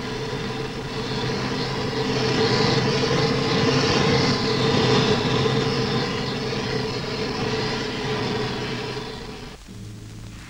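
Flame of a wheeled gas burner cart playing over a steel bridge deck: a steady rushing noise with a low hum that swells and then eases off. It cuts off abruptly near the end, where music begins.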